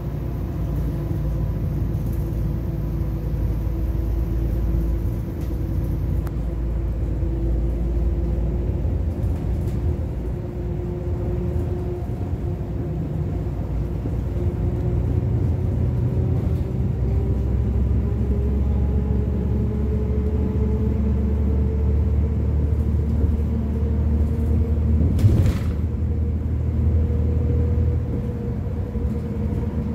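Steady engine and road rumble inside a moving bus, with a faint engine note that slowly climbs in pitch as the bus picks up speed, and a single short knock about 25 seconds in.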